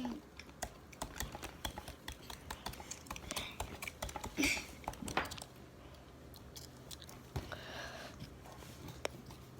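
Swiss Army knife blade tapping and chipping at a block of ice in a bowl: a quiet, irregular run of sharp clicks and taps, a couple louder ones about halfway through.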